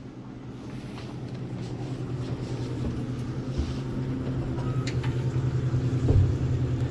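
Elevator car in motion: a steady low hum that grows gradually louder, with a couple of soft low knocks.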